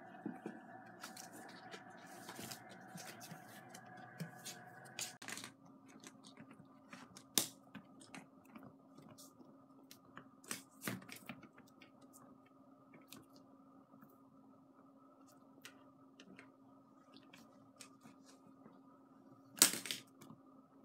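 Kittens scrambling and playing: scattered light taps, scratches and clicks of paws and claws on a cardboard scratcher and a wooden floor, with one sharper knock near the end.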